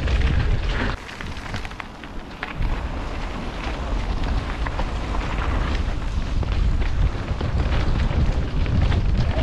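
Wind buffeting the microphone of a camera on a mountain bike riding downhill, with tyres rolling over dirt and the bike rattling and knocking over bumps. The rumble drops for a moment about a second in, then picks up again.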